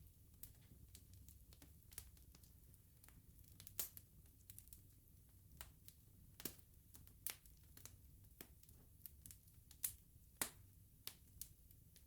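Wood bonfire crackling: irregular sharp pops and snaps of burning wood over a faint low rumble, with the loudest pops about 4 and 10 seconds in.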